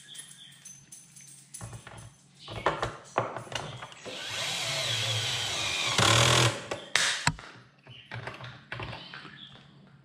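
Cordless gyroscopic screwdriver driving a screw into a plastic vacuum tub. The motor runs for about two and a half seconds in the middle and is loudest just before it stops. Knocks and clicks of handling come before and after it.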